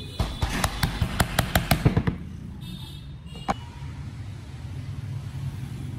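A quick run of about a dozen sharp knocks on wood, roughly six a second for two seconds, then a single knock about three and a half seconds in, as from hand tools working a wooden joint.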